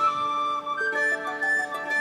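Background music: a flute-like melody of held notes over a sustained accompaniment.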